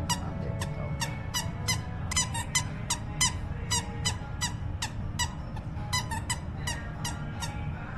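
Short, high squeaks repeated irregularly, several a second.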